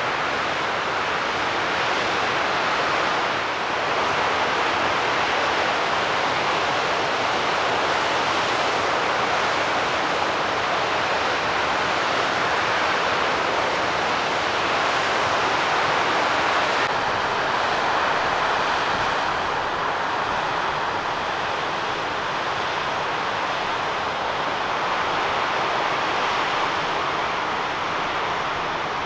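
Steady rush of water from a mountain waterfall: an even, unbroken noise with no distinct splashes.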